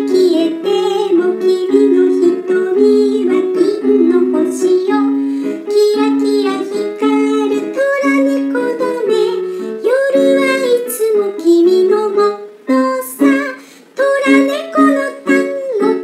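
Music: a bouncy tango song played on a keyboard, with short repeated accompaniment notes under a melody line.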